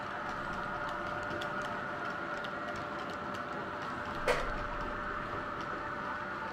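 H0-scale model freight train of Rocktainer wagons rolling past, a steady hum with fast, irregular ticking of the wheels over the track. There is one sharper click about four seconds in.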